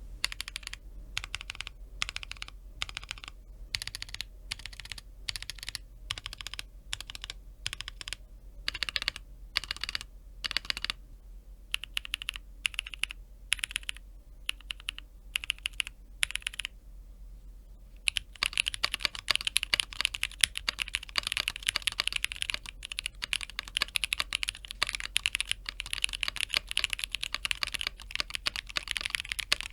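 Everglide SK68 aluminium mechanical keyboard with Zaku switches and Akko Silent PBT keycaps being typed on. Keys are pressed one at a time in slow runs with short pauses, then about 18 seconds in it changes to fast, continuous typing.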